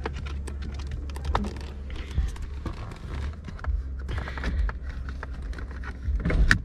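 Scattered clicks and rustles of hands working in a car cabin while reaching down toward the hood release, over a steady low hum. A louder knock comes near the end.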